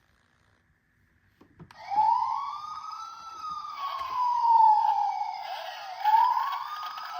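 Toy emergency vehicle's electronic siren, starting with a click about a second and a half in, then wailing slowly up and down in pitch through a small speaker. A few light knocks sound underneath it.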